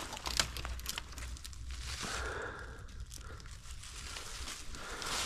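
Dry fallen leaves crunching and sticks snapping and scraping as someone pushes through a tangle of dead branches on the forest floor, in a run of irregular sharp crackles.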